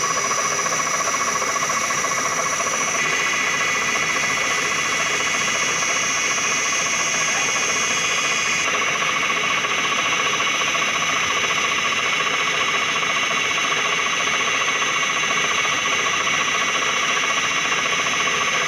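CNC milling machine running: a steady mechanical whine made of several high pitches over a noisy hum. The pitches shift about three seconds in and again about nine seconds in.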